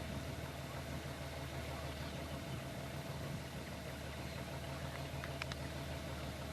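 A vehicle engine idling steadily under a constant hiss, with a few faint clicks about five seconds in.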